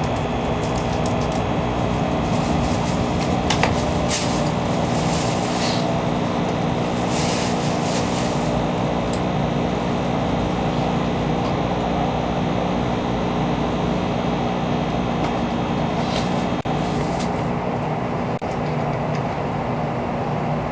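Cabin noise of a Shinkansen bullet train pulling slowly into a station: a steady, loud running hum with several steady motor tones. A few brief higher-pitched noises rise over it.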